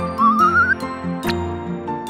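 Upbeat children's cartoon background music with light percussive ticks. About a quarter second in, a short warbling whistle-like sound effect climbs in pitch for about half a second.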